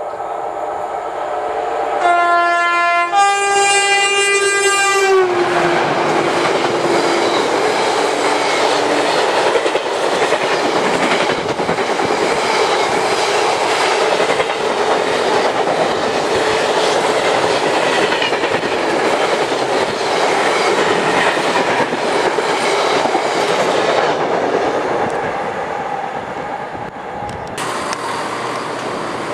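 A freight train's locomotive sounds a two-tone horn, a short low note then a longer higher note that drops in pitch as it passes. A long train of loaded tank wagons follows, rolling through with a steady rumble and clatter of wheels over the rails before fading. Near the end the sound gives way to a quieter, steady hum of a CrossCountry Voyager diesel train standing at the platform.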